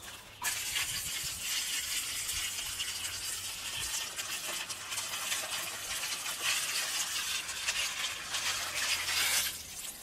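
A stream of water from a hose splashing onto gravel in a white basin, rinsing it. The splashing starts about half a second in, runs steadily and stops shortly before the end.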